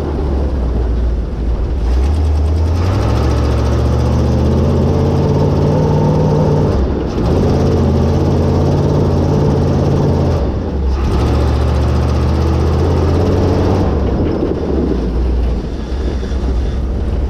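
A 1976 Dodge Power Wagon's 360 Mopar V8, fitted with headers, running under way. The engine note rises about two seconds in and dips briefly twice, about seven and about eleven seconds in.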